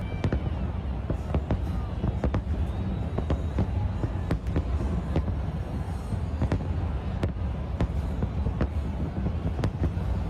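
Fireworks going off in quick irregular succession, sharp bangs several a second over a steady low rumble.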